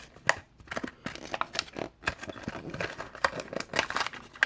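Plastic blister packaging and card of a Hot Wheels pack crinkling and crackling, with sharp snaps and a little tearing, as the die-cast car is handled and opened.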